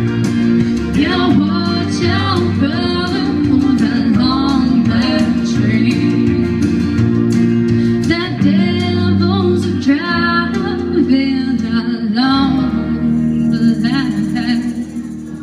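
A young woman singing a country song into a microphone over instrumental backing through a PA. The music fades out near the end.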